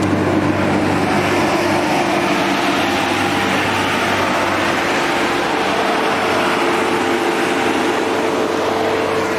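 Mercedes OM642 3.0-litre V6 diesel running steadily at about 2,000 rpm during a forced diesel particulate filter regeneration, with the radiator fans running at full speed.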